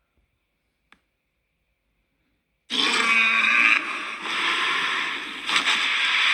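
Near silence with one faint click, then, under three seconds in, a long, loud growling vocalisation of the Thagothorn monster.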